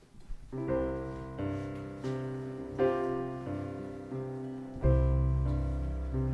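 Keyboard playing the introduction to a sung chant: chords struck one after another, a new one about every second, starting about half a second in. A deeper bass note comes in about five seconds in.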